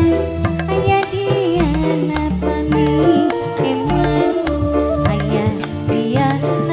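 Instrumental break of a live dangdut band: a gliding melodic lead line over repeating bass notes, with steady drum and shaker percussion.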